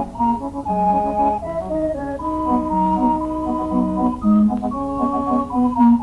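Organ music: a melody of held notes moving over sustained chords, with a steady low hum underneath.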